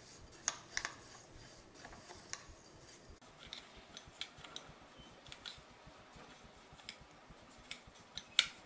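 Metal spoon stirring crisp fried moong dal with salt in a glass bowl: irregular light clicks and ticks of the spoon and dry grains against the glass, with one louder click near the end.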